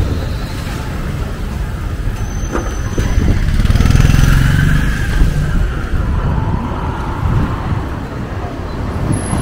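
Street traffic noise: a steady low rumble of motorbikes and cars running by.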